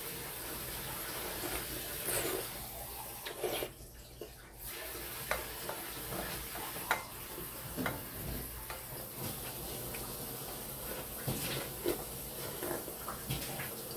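A person eating beef rib soup (galbitang): slurping and swallowing broth from a tipped ceramic bowl and chewing, with scattered light clicks of chopsticks against the bowl.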